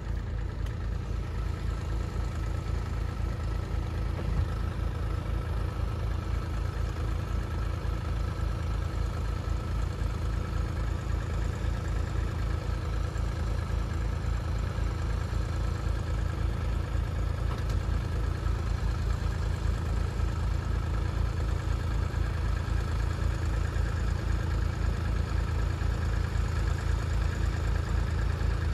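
Tractor diesel engine running at a steady idle with an even, unbroken beat.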